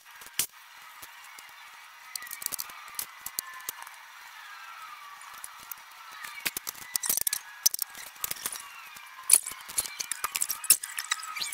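Vinyl wrap film being worked by hand onto a truck door: squeegee and blade rubbing and scraping on the film, with scattered sharp clicks and scrapes that grow busier in the second half.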